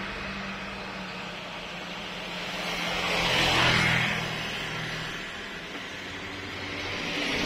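Toyota Avanza 1.5 S's 1.5-litre four-cylinder engine idling steadily, heard from inside the cabin, with a rush of air that swells about halfway through.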